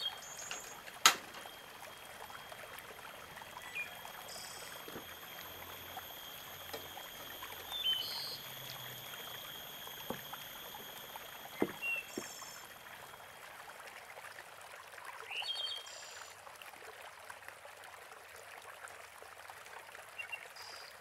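Faint steady hiss of outdoor background with two thin steady high-pitched tones, broken by a sharp click about a second in and a few light knocks of ingredients and utensils being handled at the pot, plus several short high chirps.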